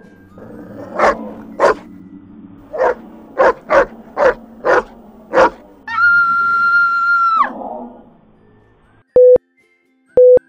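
Dog barking, eight sharp barks in quick succession, then a long high-pitched scream that holds steady for about a second and a half and falls away at the end. Near the end come two short, loud beeps about a second apart.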